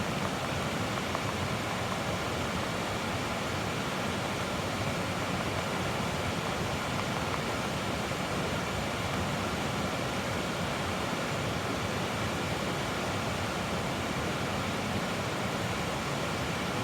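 Steady rush of a flowing creek, an even, unbroken water noise.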